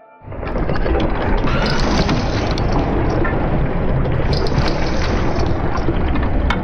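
A mechanical machine sound effect starting abruptly and running steadily with a heavy rumble, a steady hiss and many scattered metallic clicks.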